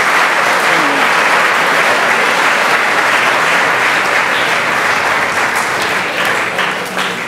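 An audience applauding steadily, a dense sustained clapping that tapers off near the end, welcoming a speaker to the lectern.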